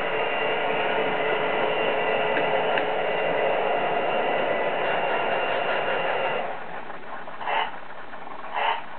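HO-scale DCC model trains running, with a steady whir and hum of locomotive motors and sound decoders. The hum drops about six and a half seconds in, leaving short regular pulses about once a second.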